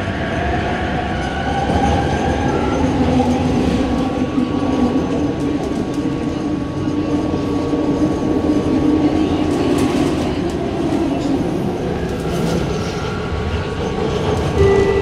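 Bombardier Innovia Metro 300 light-metro train heard from inside the car, its linear-induction motor whine rising in pitch as it pulls away from the station. It then settles into a steady running hum over the rumble and clatter of the wheels on the rails.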